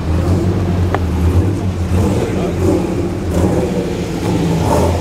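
Mini bike's small engine running steadily at idle.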